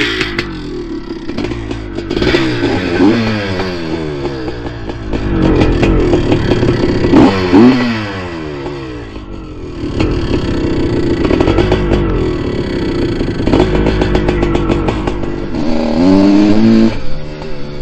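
Open-class two-stroke dirt bike engine being ridden hard, its pitch climbing and dropping again and again as the throttle is worked and gears change, with a longer rising rev near the end.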